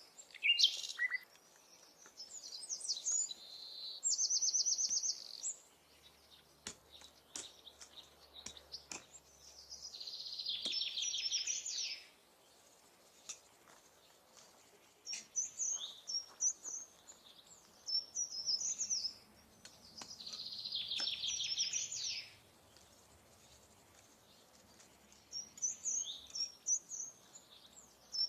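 A songbird singing repeated phrases about every five to six seconds. Each phrase is a run of high chirping notes that ends in a fast, even trill. A few faint clicks fall between the phrases.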